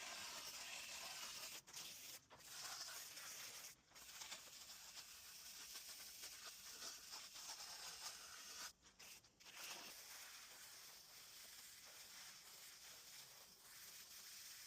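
Faint, steady hissing spray on an air-conditioner condenser coil during cleaning, cut off briefly a few times.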